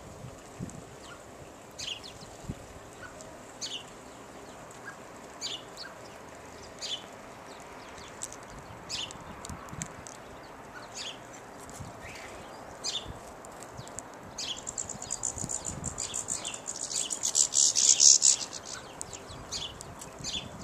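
Small garden songbirds calling: a short, high chirp repeated about every two seconds, then a stretch of rapid high twittering about two-thirds of the way through.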